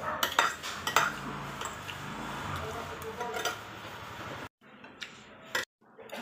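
Metal spoon and fork clinking and scraping against a ceramic plate as rice is scooped up, with several sharp clinks.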